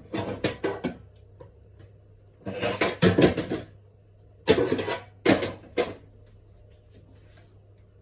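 A large cooking pot and its utensils clattering and scraping in several bursts, with sharp clicks in the first second.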